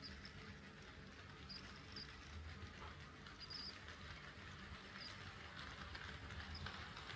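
HO-scale KATO D51 steam locomotive model running on track: a faint, steady low motor hum with light clicks of the wheels on the rails about once a second.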